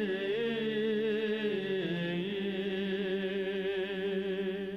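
Men's monastery choir holding a long, sustained chord in Orthodox liturgical chant, the drawn-out close of "во веки веков", with the voices moving slightly about two seconds in.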